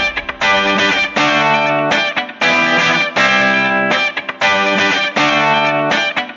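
Music with guitar: sustained chords broken by short gaps about every half second to a second.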